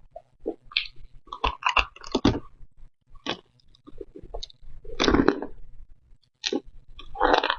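Close-miked eating sounds: irregular crunchy bites and chewing, loudest a little after five seconds and again near the end.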